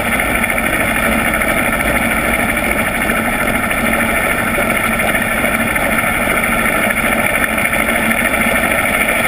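A yacht's inboard engine and spinning 16-inch folding propeller heard underwater: a steady drone of several held tones over a hiss, with no change in speed.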